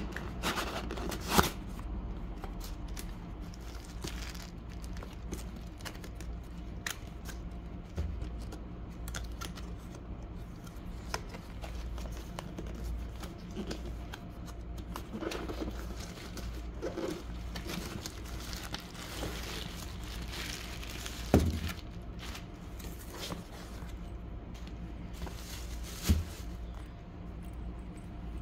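Cardboard microphone box and plastic packaging being handled and opened: rustling and crinkling of card and wrap, with three sharp knocks, the loudest about 21 seconds in, over a steady low hum.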